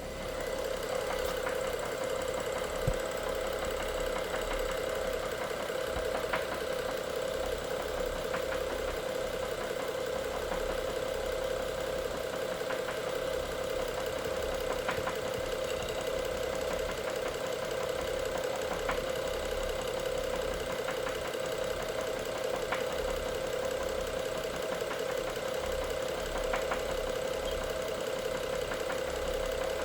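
BMW N55 3.0-litre turbocharged straight-six running steadily with an engine knock, the fault being chased. A steady hum with a few sharp ticks scattered through it.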